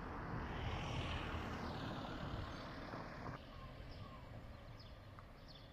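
Street traffic: a vehicle passing close by, its noise swelling in the first couple of seconds and then fading into quieter road ambience. A few faint chirps come in near the end.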